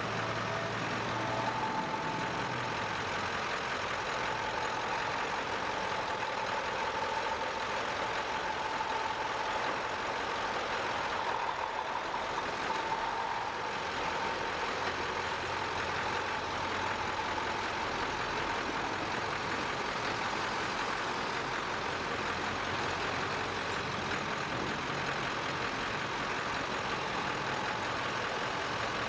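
Heavy trucks, a fire ladder truck followed by wrecker and flatbed tow trucks, driving slowly past one after another, a steady mix of diesel engine and tyre noise. A faint steady high tone sits over it through roughly the first half.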